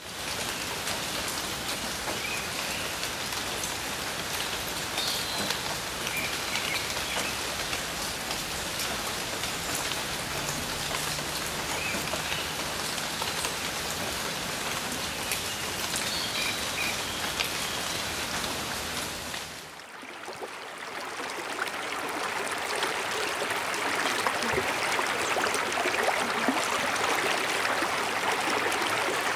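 Rain falling steadily for about twenty seconds. Then the sound dips briefly and a stream fades in, its running water building to a steady rush.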